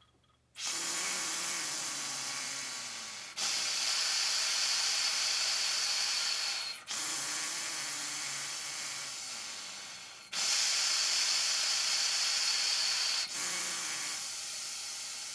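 Air rushing through the straw of a Breath Builder breathing trainer as a person takes long, slow breaths in and out through it, the long-tone breathing exercise. There are five passes of about three seconds each, with only a brief break at each change of direction; every other pass is louder and hissier.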